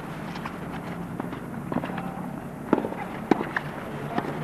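Tennis balls being struck by rackets and bouncing on the court: a scattering of sharp, irregular pops, the loudest about two and three quarters and three and a quarter seconds in.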